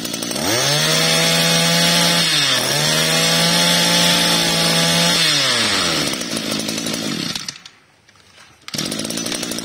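Kioritz Echo 221 two-stroke brush cutter engine (23 cc) revved up and held at high throttle, dipping briefly once, then dropping back to idle. It cuts off about seven and a half seconds in. An engine's running sound comes back near the end.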